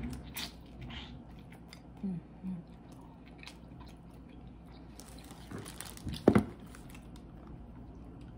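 Crawfish being eaten up close: wet chewing and shell crunching, with scattered small clicks and a louder pair of knocks about six seconds in.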